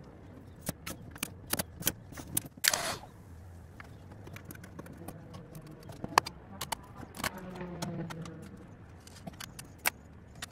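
Scattered clicks, knocks and light rattles of hands working on a Makita 36V miter saw and its wiring, with a short scraping noise about three seconds in.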